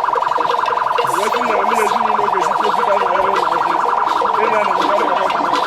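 A continuous high-pitched tone, alarm-like and pulsing rapidly without a break, over the voices of people around.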